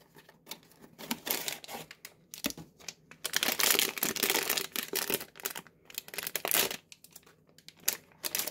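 Foil blind-box bag crinkling and tearing as it is taken from its cardboard box, crumpled and ripped open by hand. The crinkling comes in irregular bursts and is densest from about three to five seconds in.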